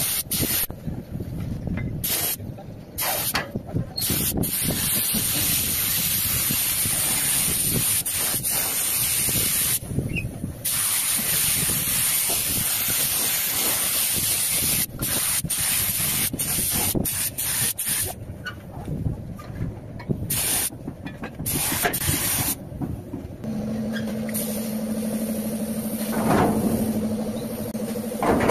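Compressed-air paint spray gun hissing as it coats a motorcycle fuel tank, in long bursts broken by short pauses where the trigger is let go. Near the end the hiss gives way to a steady hum.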